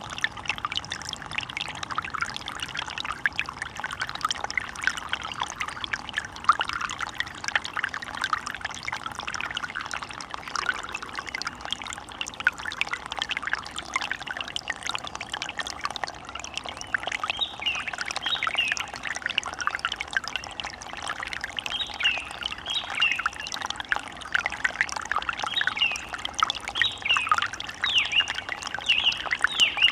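Running water splashing and trickling steadily, with short bird calls chirping over it, more often from about halfway through.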